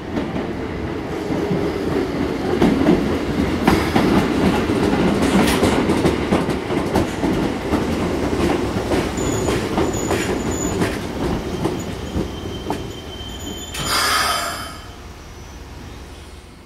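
Keikyu 1500 series electric train running in along the platform and braking to a stop: wheel and running noise with repeated clacks over rail joints. A short burst of air hiss comes near the end as it halts, and then it goes quieter.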